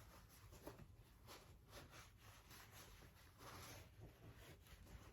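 Near silence with faint scratchy rubbing: excess Shoe Goo being wiped off a shoe, a little louder just past the middle.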